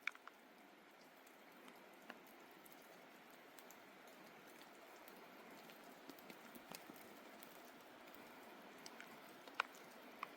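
Near silence: a faint steady hiss with scattered small sharp ticks, a few of them louder near the end.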